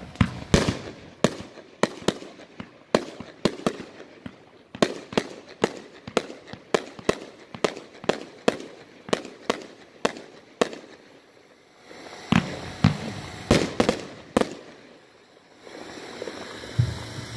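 A 25-shot consumer firework cake firing: a rapid run of sharp reports, about two to three a second, for about eleven seconds, then after a short pause a last few louder bangs before it stops.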